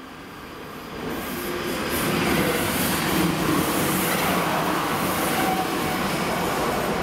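Train passing over a level crossing: the rumble of wheels on the rails grows louder over the first two seconds, then holds steady as the cars go by.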